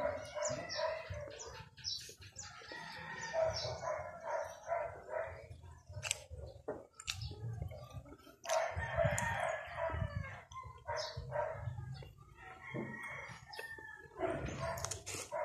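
Rooster crowing once, loudly, for about a second and a half near the middle, with chickens clucking around it. Sharp clicks of a spoon and eating noises close by.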